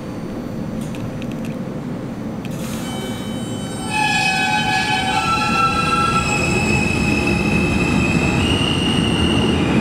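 R160A subway train pulling out of the station: a steady low rumble and a short hiss, then from about four seconds in the propulsion motors start with a chord of steady whining tones that step up in pitch as the train accelerates.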